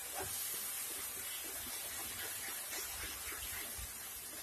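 Grated bottle gourd in its own released liquid and melted sugar cooking with a soft, steady sizzle in a nonstick kadai, while a wooden spatula stirs and scrapes through it.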